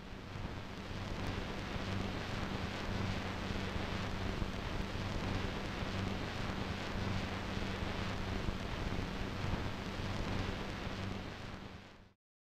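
Steady rushing noise, like heavy static or rain, with a low hum underneath. It fades in at the start and fades out about a second before the end.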